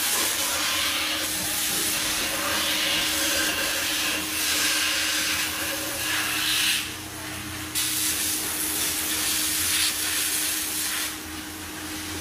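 Loud steady hiss, like a jet of air or spray, that stops about seven seconds in, starts again a second later and fades out near the end, over a steady machine hum.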